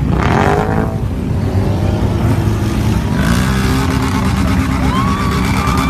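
Off-road ATV/UTV engine running loud and steady, with a few short pitched sweeps and a wavering tone over it.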